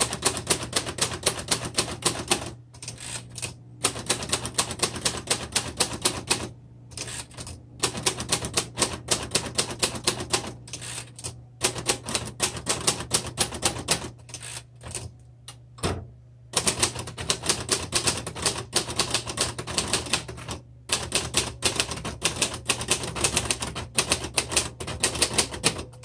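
Royal Heritage III manual typewriter being typed on: rapid runs of typebar strikes at several a second, broken by a few short pauses.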